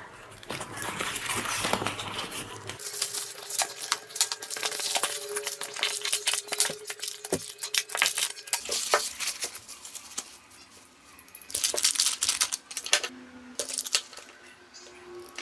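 A cardboard box being unpacked: the flaps are pulled open and plastic bags and bubble wrap crinkle and rustle as parts are taken out, with small clicks and rattles from the parts inside.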